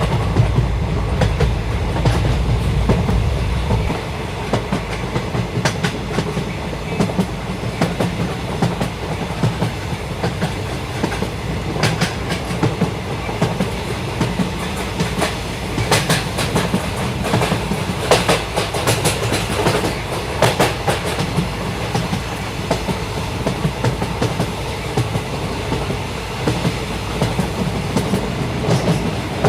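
Passenger train running along the track: a steady rumble of coach wheels on the rails, with frequent irregular sharp clicks and clatter over the rail joints. The low rumble eases slightly a few seconds in.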